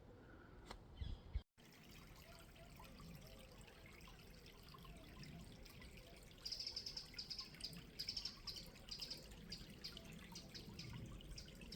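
Faint trickle of a shallow river. From about halfway through, a small bird sings in quick bursts of high notes.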